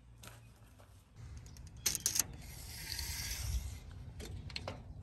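Steel tape measure being handled: a quick cluster of metallic clicks about two seconds in, then the blade sliding out with a rasping hiss for about a second and a half.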